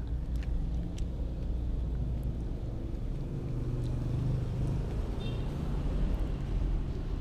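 A steady low rumble with a wavering low hum runs throughout, under faint small clicks of a kitten chewing rice. A brief high squeak sounds about five seconds in.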